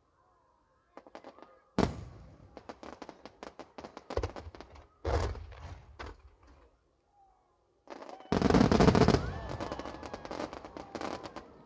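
Aerial fireworks exploding. There is a sharp boom about two seconds in, then more booms with rapid crackling. About eight seconds in comes a much louder, dense volley of bangs and crackles as a large shell bursts directly overhead, and the crackling dies away near the end.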